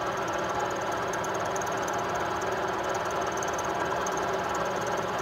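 Milling machine spindle running at just over 500 RPM with a 12 mm high-speed-steel end mill taking a 1 mm (40 thou) cut in metal: a steady machining hum and hiss, with a little vibration.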